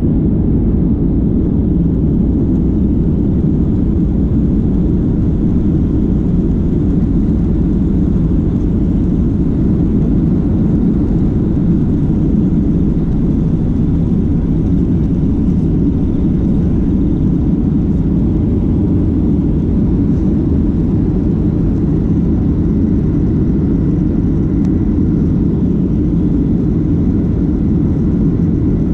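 Airliner's jet engines during take-off: a loud, steady, low rumble that holds even throughout.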